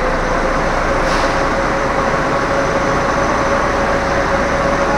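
Steady running noise of a Moskva-2020 metro train standing at the platform with its doors open, with a steady humming tone from its onboard equipment over the station's general rumble.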